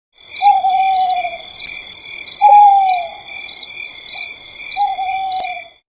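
Owl hooting three times, each a drawn-out hoot of about a second that falls slightly in pitch, over a steady background of insects chirring in a pulsing rhythm.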